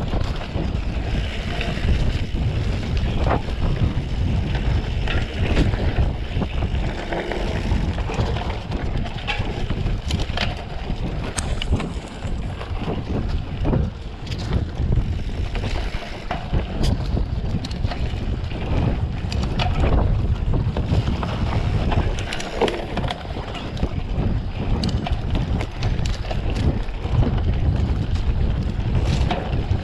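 Wind buffeting the microphone of a mountain bike riding fast down a dirt forest trail, over the rumble of the tyres rolling on the ground, with frequent short knocks and rattles as the bike goes over bumps.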